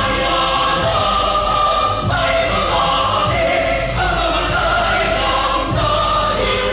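A choir singing long, held notes that change pitch every second or two.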